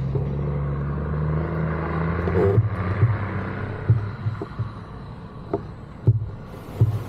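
Ultralight aircraft engine running steadily, then dropping off about two and a half seconds in. Irregular thumps follow, about once a second.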